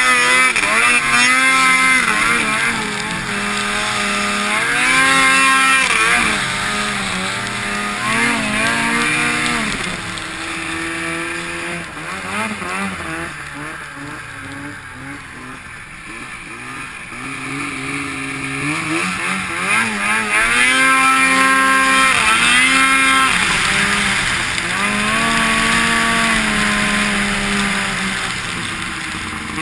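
Ski-Doo MXZ X-RS 800 snowmobile's Rotax 800 H.O. Power T.E.K. two-stroke twin revving up and falling back again and again as the throttle is worked. It drops to a lower, quieter run for a few seconds around the middle before climbing again.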